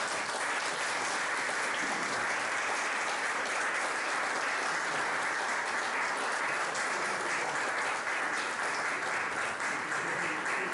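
Audience applauding: many people clapping steadily at the close of a talk.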